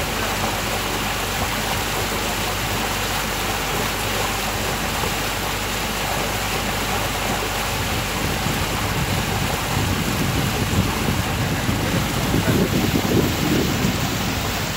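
Steady rushing noise of a boat moving across open water, with a louder low rumble for a few seconds late on.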